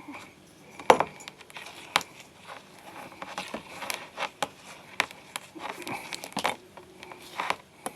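Irregular small clicks, light knocks and rustling of small hard objects being handled and set down on a work surface, with the sharpest knock about a second in.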